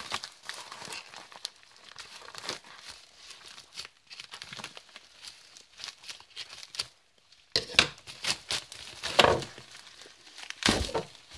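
Plastic mailer bag crinkling and rustling as it is cut open with scissors and pulled apart by hand, with louder bursts of crinkling in the last few seconds.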